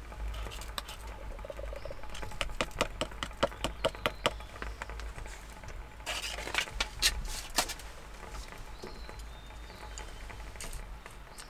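A small seasoning packet being handled and shaken, as dried flakes are tipped from it into a pot of noodles. It makes light, quick crinkles and ticks in two runs, the first near the middle and the second a little later.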